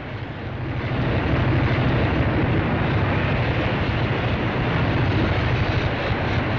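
Steady, loud din of factory machinery, swelling over the first second and then holding level with a low hum underneath.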